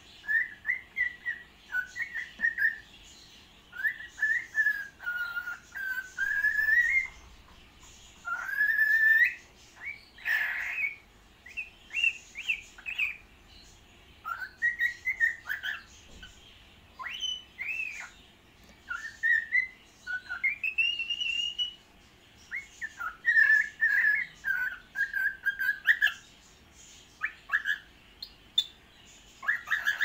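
Cockatiel singing: a run of short whistled phrases that glide up and down in pitch, broken by brief pauses, with one short harsh burst about a third of the way through.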